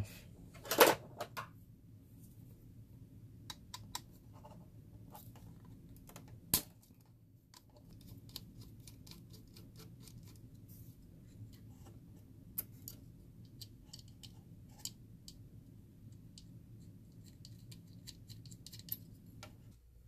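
Scattered small clicks and taps of hands and a screw working on a steam humidifier's fill valve, a solenoid valve with a metal bracket, as its ground wire is taken off. Sharper knocks come about a second in and again about six and a half seconds in, over a faint low hum.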